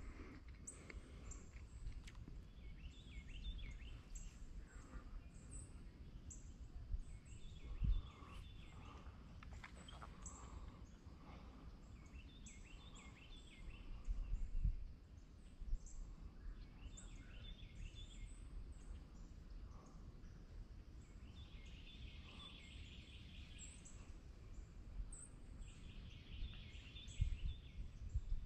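Quiet woodland ambience: a small bird repeats a short trilled song phrase every few seconds, with high chirps from other birds, over a faint low rumble. A few soft thumps, the loudest sounds, come about 8 and 14 seconds in and near the end.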